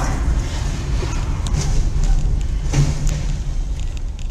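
Car driving, its engine and road noise heard from inside the cabin as a steady low rumble, with a few faint ticks partway through.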